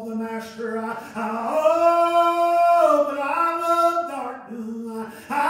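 A man's voice singing out in the preacher's strong voice, holding long notes rather than speaking; the longest and loudest note is held from about a second and a half in.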